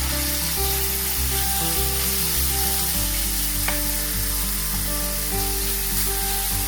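Small boneless chicken pieces sizzling and frying in hot vegetable oil in a pan, with a steady hiss throughout, over background music.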